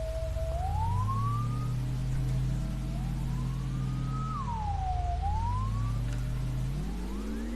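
Synthesizer drone played from an Akai MIDI controller: low sustained tones with a higher tone above them that keeps gliding in pitch, rising, then rising again and sweeping down about halfway through before climbing once more. The low tones also slide up, dip in the middle and rise again near the end.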